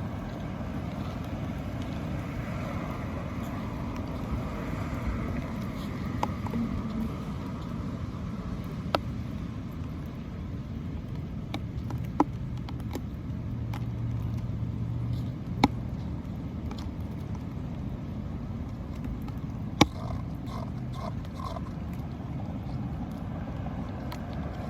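Steady low outdoor rumble, with four sharp clicks or taps spread through it.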